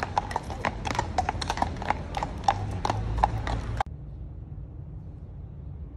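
Hooves of two walking horses clip-clopping on a wet road: a quick, irregular run of sharp hoof strikes over a low city rumble. The sound cuts off abruptly about four seconds in, leaving a low, steady hum.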